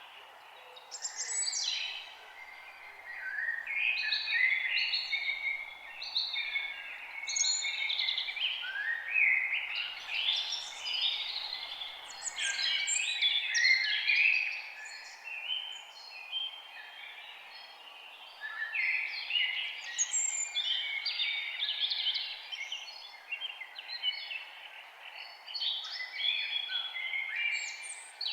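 Several songbirds singing and chirping at once, a dense overlapping chorus of quick trills and calls, over a steady faint background hiss.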